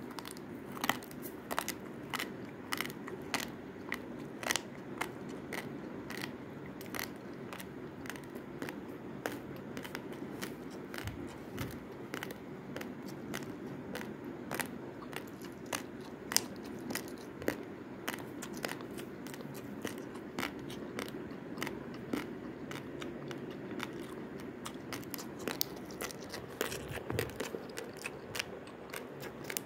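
Raw long-grain basmati rice crunching as it is chewed: sharp, irregular crackles about once or twice a second over a steady low hum.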